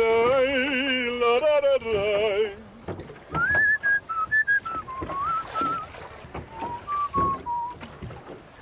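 A man sings one long wavering note with vibrato, then, about three seconds in, whistles a tune in clear single notes that step up and down.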